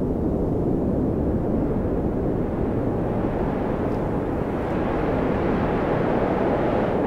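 Steady wind in a snowstorm, a low rumbling rush with a faint whistle that wavers in pitch.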